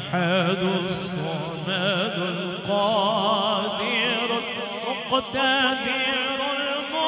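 A man singing a Punjabi naat into a microphone, drawing out long, ornamented notes with a wavering vibrato.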